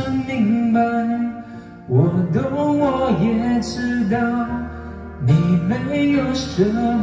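Karaoke playback of a Mandarin pop ballad: the backing music plays under a voice singing the melody into a microphone, with a short dip in loudness about two seconds in.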